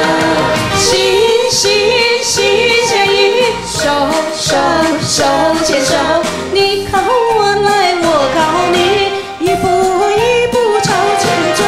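Two women singing a Chinese pop duet into microphones over a backing track.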